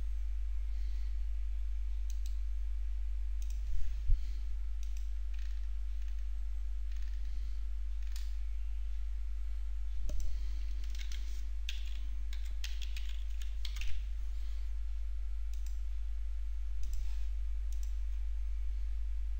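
Scattered clicks and taps of a computer keyboard and mouse, with a denser run of clicks around the middle, over a steady low electrical hum.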